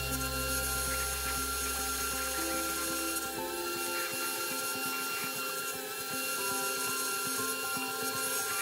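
Dremel rotary tool running with a small drill bit, drilling window holes into a plastic model hull. Its steady whine dips briefly in pitch twice as the bit bites into the plastic.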